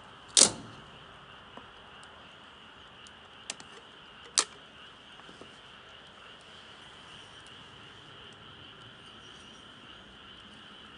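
Steady chirring of insects, with three sharp cracks over it. The loudest crack is about half a second in, and two smaller ones come about three to four seconds later.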